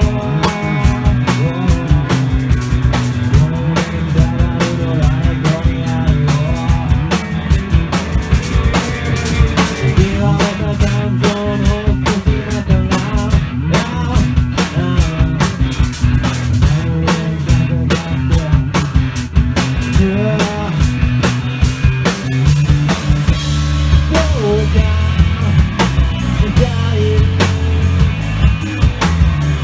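Rock band playing live in a small rehearsal room: a drum kit and electric guitars.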